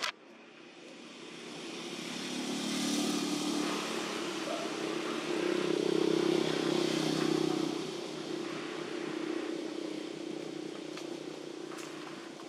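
A motor vehicle's engine passing by: a steady hum that swells over a few seconds, is loudest a little past the middle, then fades away.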